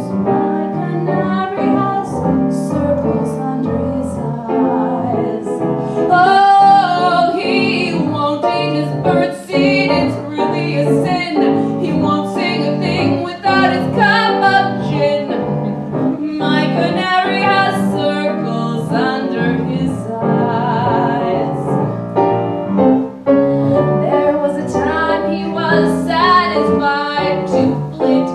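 A woman singing a cabaret song with piano accompaniment.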